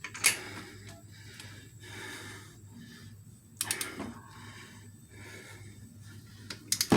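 Metal clinks and clicks from a torque wrench and socket being worked on the cylinder head bolts: one sharp click about a third of a second in, a quick run of three clicks near the middle, and another quick run near the end, with faint handling noise between.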